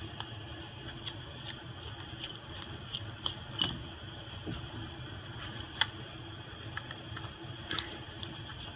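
Scattered light clicks and taps from a phone being handled during a repair, two of them sharper than the rest, over a faint steady hum.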